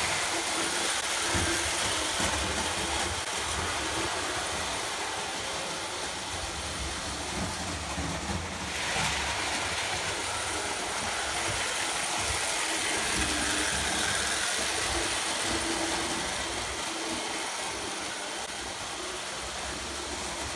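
Lionel O gauge toy trains running on three-rail tinplate track, a steady, even running noise.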